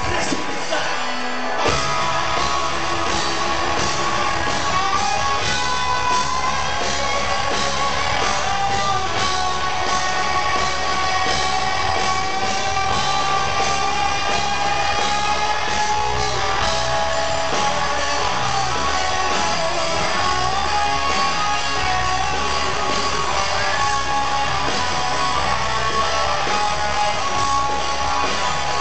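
Rock band playing live through a concert PA in a large hall: loud electric guitars, drums and a singing voice, with the full band kicking in about two seconds in.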